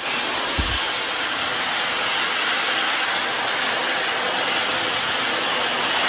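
Dyson Supersonic hair dryer blowing steadily at close range: a loud, even rush of air with a faint high-pitched whine, and a brief low bump about half a second in.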